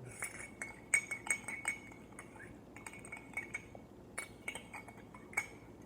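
A spoon clinking against a glass container in irregular, clustered taps, each leaving a short ringing note, as a mixture is stirred.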